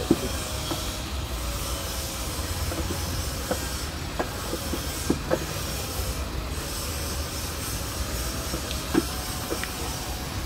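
A screwdriver clicking and tapping against the screws and plastic mud flap in a car's wheel arch: a handful of scattered sharp clicks, the sharpest right at the start. Under them runs a steady hiss with a low rumble.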